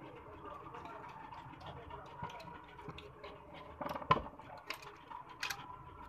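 An iPhone's display being prised up and lifted off its frame by hand: soft clicks and ticks, with one sharp snap about four seconds in and two smaller clicks after it.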